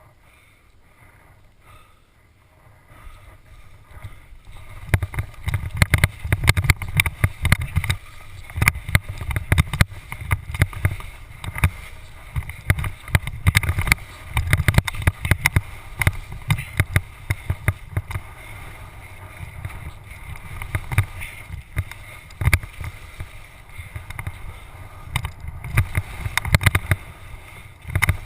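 GoPro Hero HD helmet camera chattering in its mount while skiing: a rapid, irregular clatter of rattles with low thumps. It starts about four seconds in, after a quieter stretch; the supplied rubber damper does not stop the chatter on this mount.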